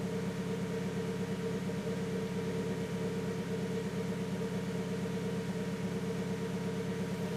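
Turbocharged Honda Civic four-cylinder engine idling steadily with an even hum. It is still running rich even with the piggyback fuel controller's map pulled to −100%.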